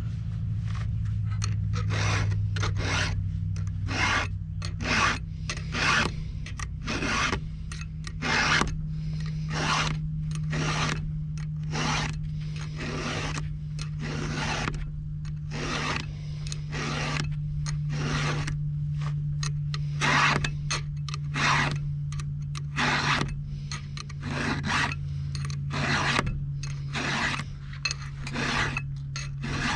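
Round file rasping across the cutters of a chainsaw chain during hand sharpening, in repeated even strokes about one and a half a second. A steady low hum runs underneath.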